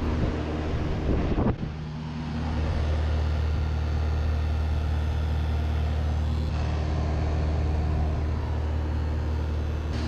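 Old GE air-conditioner outdoor condensing unit running: a steady hum with even overtones from its compressor and fan motor, growing louder about two seconds in. A few knocks in the first two seconds.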